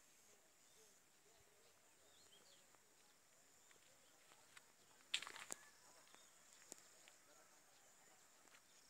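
Near silence with the faint steady high buzz of insects, broken by a few sharp clicks about five seconds in.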